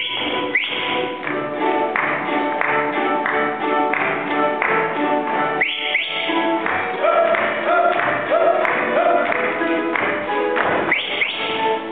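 Balalaika orchestra playing a fast, rhythmic folk dance tune, with dancers' feet stamping on the beat. Short rising whistle-like calls cut in at the start, about halfway, and near the end.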